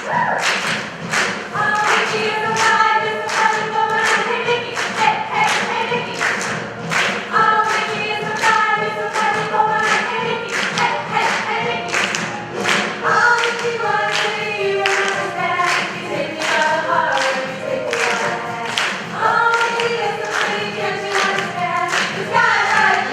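A group of voices singing together as a choir over a steady clapped or struck beat, about two beats a second.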